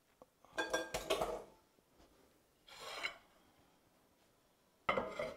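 A ceramic bowl and plate clinking and scraping against each other and the counter as they are handled, in three short bursts of clatter about a second in, about three seconds in and near the end.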